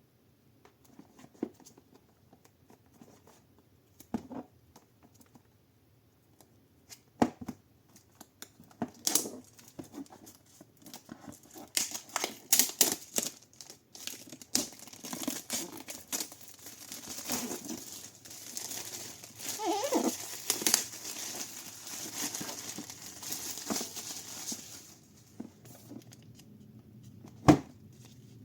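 Product packaging being opened by hand: tearing and crinkling of wrapping, with scattered clicks and knocks. It is sparse at first and becomes busy, continuous rustling about a third of the way in, easing off near the end with one sharp knock.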